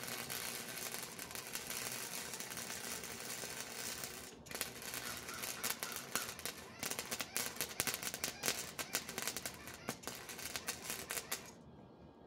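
Wire-feed welder arc. It hisses steadily for about four seconds, breaks off briefly, then goes on as an irregular crackle of sharp pops, and stops shortly before the end. The welder takes the wire speed to be set too low.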